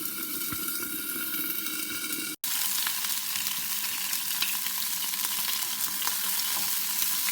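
An egg frying in hot olive oil in a pan, sizzling with a steady hiss and small pops. The sound drops out for a split second about two and a half seconds in.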